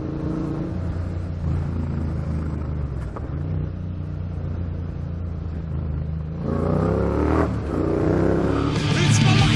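Motorcycle engine running steadily at low revs, then louder and higher as it revs up about six and a half seconds in; rock music starts near the end.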